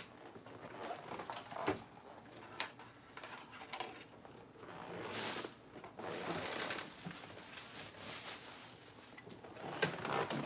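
Close-up chewing of crunchy salad lettuce: irregular soft crunches, clicks and wet mouth sounds, with a brief rustling hiss about five seconds in.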